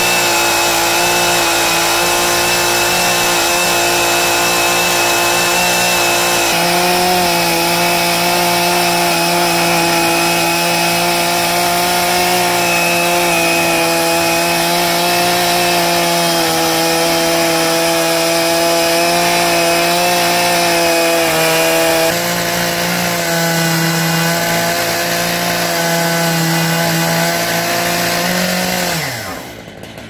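Two-stroke chainsaw running at full throttle under load, ripping lengthwise through a large log in a chainsaw mill. Near the end the throttle is released and the engine winds down with a falling pitch.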